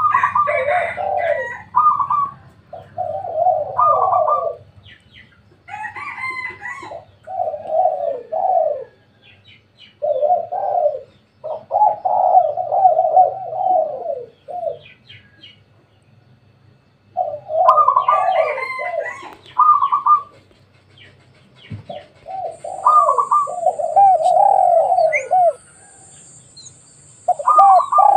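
Spotted doves cooing in repeated phrases, bout after bout with short pauses between, and thin chirps of smaller birds among them.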